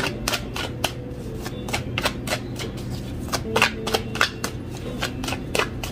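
A deck of tarot cards shuffled by hand, the cards snapping against each other in a quick, irregular run of clicks.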